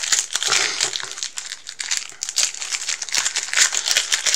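Foil wrapper of a Pokémon TCG booster pack being torn open and crinkled by hand, a continuous crackly rustle.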